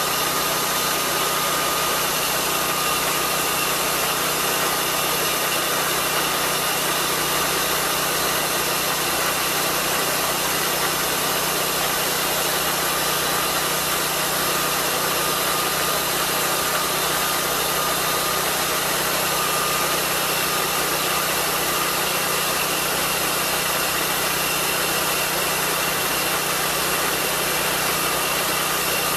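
Lucas swingblade sawmill running steadily, its engine driving the circular blade while the carriage is pushed slowly along a cut through the log. The running is even throughout, with a thin steady whine above the engine.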